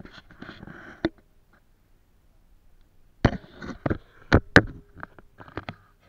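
Handling noise of the camera being moved and set down: rustling in the first second, then several sharp knocks and scrapes, the loudest a little after three seconds and again around four and a half seconds.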